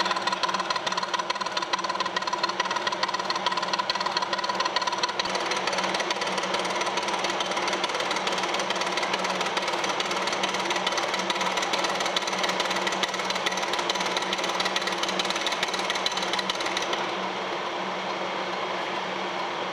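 Cincinnati horizontal milling machine taking a face-mill cut across the back of a straight edge casting: a rapid, steady rattle of the cutter teeth biting the metal over the machine's hum. Near the end the rattle drops away, leaving the machine running with a smoother hum.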